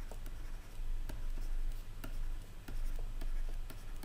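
Stylus writing on a tablet surface: irregular light taps and scratches as words are handwritten, over a low steady hum.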